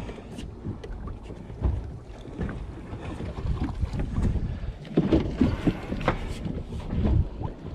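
Wind buffeting the microphone on an open boat, with scattered knocks and clicks from handling fishing gear and a landed fish.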